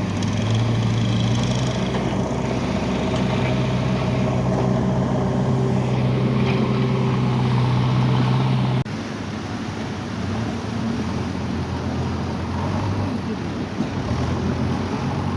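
A vehicle engine running with a steady low hum. About nine seconds in the hum cuts off suddenly, leaving a quieter, uneven rumble of traffic.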